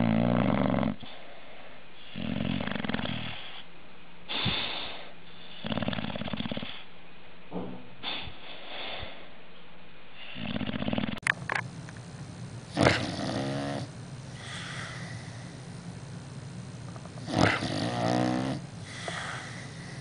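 Sleeping English bulldog snoring in an even rhythm, one snore about every one and a half to two seconds. About eleven seconds in, a second sleeping dog takes over with louder snores, the strongest starting sharply with a snort.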